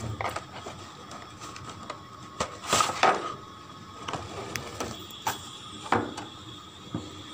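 Cardboard box being handled and opened by hand: scattered scrapes, taps and rustles, loudest about three seconds in, as the lid comes open and the plastic screen magnifier is slid out.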